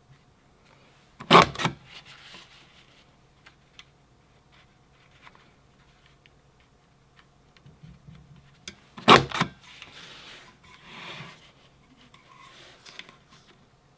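Creative Memories Floral Peaks decorative border punch snapping down through paper twice, each stroke a quick cluster of sharp clicks: once about a second in, again about nine seconds in. Between the strokes, paper rustles and slides as the sheet is fed along to the next position.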